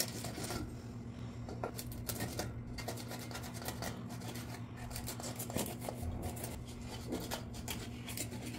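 A blade cutting a whole hilsa fish into pieces: repeated short, irregular cutting strokes through flesh and bone, over a steady low hum.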